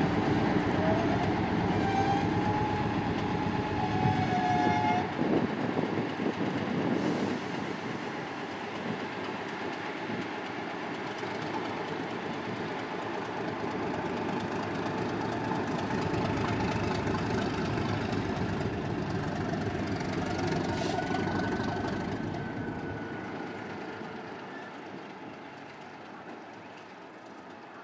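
Queensland Rail heritage diesel locomotive 1461 running as it moves slowly away, its engine and wheel noise steady at first and then fading over the last third. There are a few brief high tones near the start and again about three-quarters of the way through.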